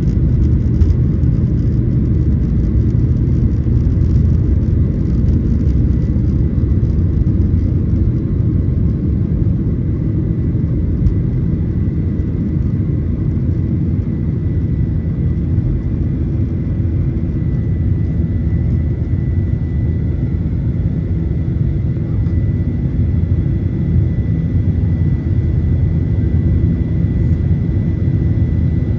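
Steady cabin noise inside a Boeing 737-900ER: a loud, even low rumble of the CFM56 engines and airflow, with a faint steady high whine.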